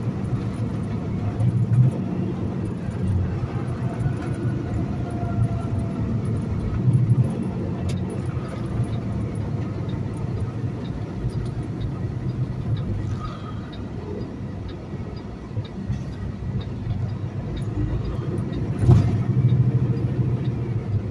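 Semi-truck's diesel engine and road noise heard inside the cab while driving, a steady low drone that drops for a few seconds past the middle and then picks up again. A sharp thump near the end.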